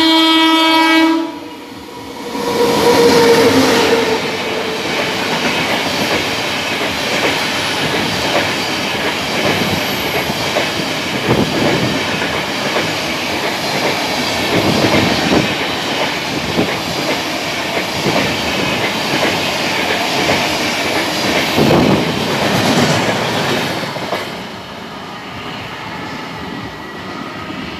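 An Indian Railways WAP7 electric locomotive's horn sounds a loud blast that cuts off about a second in, then the express runs through the station at speed: a steady rush of coaches with wheels clattering over rail joints, dropping away about four seconds before the end as the train goes off.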